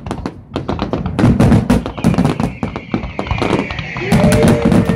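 Fireworks going off in a rapid barrage of bangs and crackles, several a second, with a steady high hiss building from about two seconds in.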